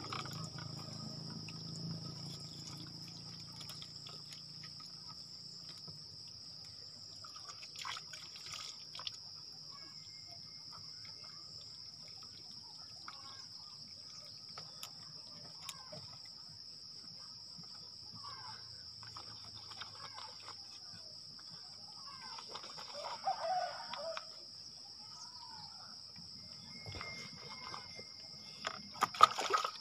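Steady high-pitched insect drone with scattered faint bird calls, including a louder chicken-like call about 23 seconds in. Near the end comes a sudden louder splash of water being poured.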